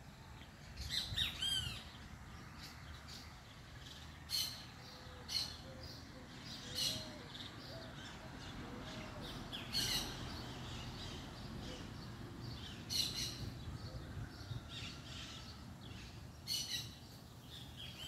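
Birds chirping in short, separate calls every second or few, scattered through the stretch, over a low steady background hum.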